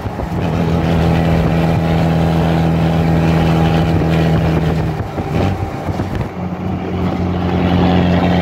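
Fiat Fiorino van's engine and road noise heard from inside the cab at highway speed, a steady drone. About five seconds in it wavers and dips for about a second, then settles back to the same steady note.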